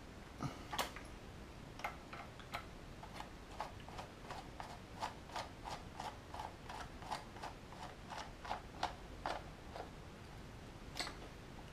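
Screwdriver turning out a small body-shell screw from a plastic model locomotive chassis: an even series of light clicks, about three a second, for several seconds, with a soft handling knock near the start.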